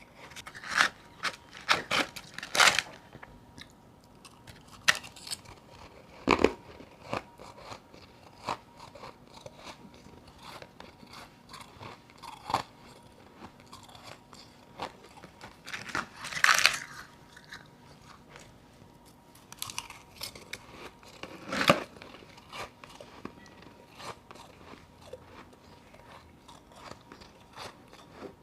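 Close-miked biting and chewing of powdery frozen ice chunks, with loud crunches: several in quick succession at the start, then one every few seconds, and softer crackling chews between.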